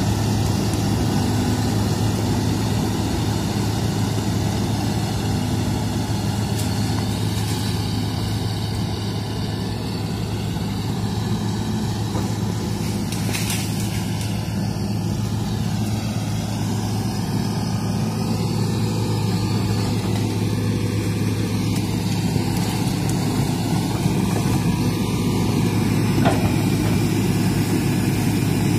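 Hitachi hydraulic excavator's diesel engine running with a steady low hum as the machine crawls on its tracks and works its boom and bucket.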